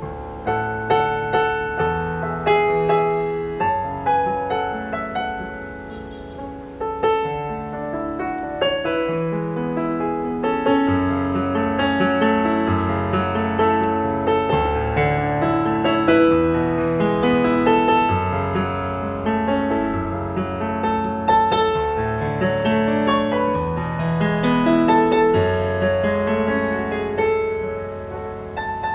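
Kawai CN21C digital piano played with both hands: a continuous piece of melody and chords over held bass notes.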